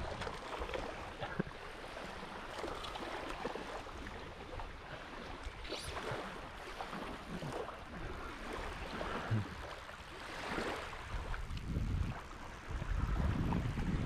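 Small waves lapping at a sandy shoreline, with wind buffeting the microphone in low rumbles that grow stronger near the end.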